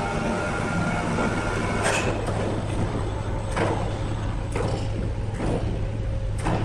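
Sawmill machinery running with a steady low hum. A high whine is present for the first two seconds, then a series of sharp knocks follows about once a second.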